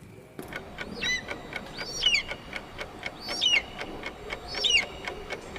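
A bird calling four times, each a short high whistle that falls in pitch, about once every second and a bit. A steady run of faint ticks sounds under it.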